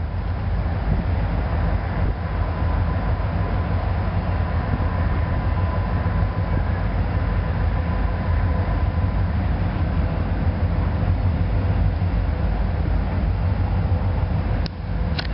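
Diesel freight train locomotive running in the distance: a steady low rumble with a faint steady whine over it. Two short clicks come near the end.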